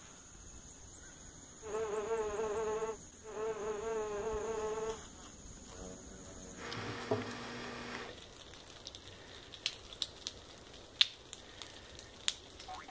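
A large wasp buzzing in two bouts of about a second and a half each, a low steady drone with a slight waver. Near the end come a few sharp clicks.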